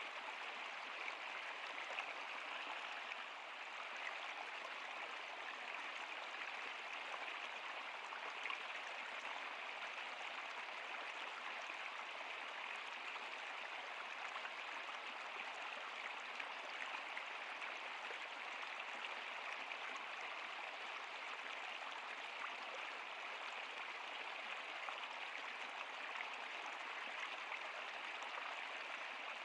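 Flowing river water: a steady, even rush with small splashes flecked through it.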